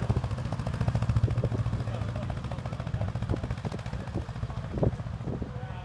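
Narrowboat's diesel engine chugging steadily at low speed as the boat passes, easing slightly toward the end, with a short louder knock near the end.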